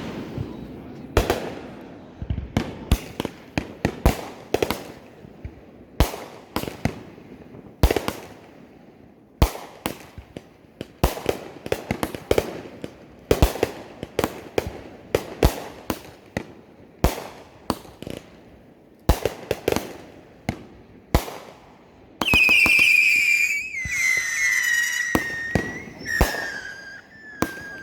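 Fireworks going off in a rapid, irregular string of sharp bangs, often less than a second apart. About 22 seconds in a loud, shrill whistle starts and slowly falls in pitch over the last few seconds, while the bangs go on.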